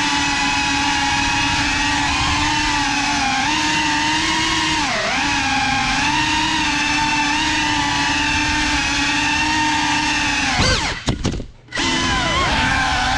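GEPRC CineLog 35 FPV drone, a 3.5-inch ducted cinewhoop, its motors and propellers whining loudly in flight as heard from the camera on board, the pitch wavering as the throttle changes. About eleven seconds in, the pitch sweeps down and the sound drops away for a moment before climbing back.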